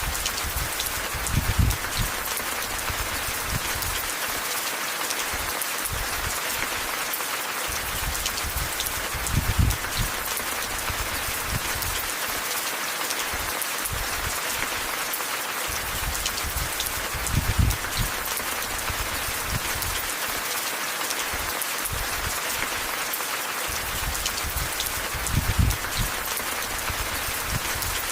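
Steady rain falling, an even hiss of drops. Four brief low rumbles come through it at about eight-second intervals.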